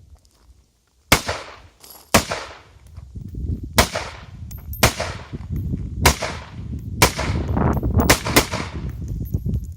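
Rifle shots, about nine, fired roughly a second apart with a quick group of two or three near the end, each sharp crack trailing off briefly.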